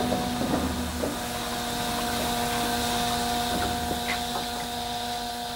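Water crane filling a steam locomotive's water tank: a steady rushing of water, with a faint steady hum underneath.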